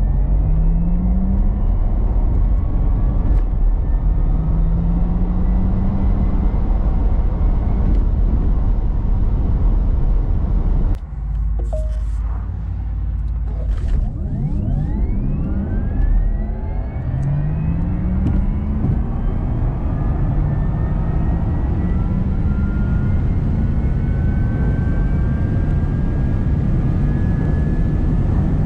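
Porsche Taycan accelerating hard, heard in the cabin: the electric drivetrain's whine rises in pitch again and again over a heavy rumble of tyre and road noise. About eleven seconds in the sound drops off for a few seconds, then a second full-throttle launch follows, its whine climbing steadily as the car pulls past 250 km/h.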